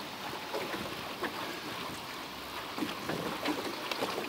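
Faint steady hiss of wind and river water with scattered small clicks and rustles as a landing net and pliers are handled to unhook a caught fish.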